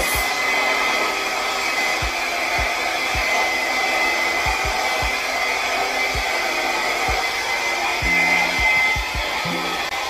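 Hand-held blow dryer with a narrow nozzle running steadily, blowing wet acrylic pour paint across a canvas. Its rush of air carries a steady high whine.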